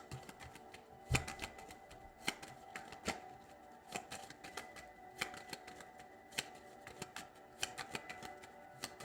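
A deck of fortune-telling cards being shuffled and handled, giving a string of irregular sharp card clicks and snaps while a clarifier card is drawn. Faint background music runs under it.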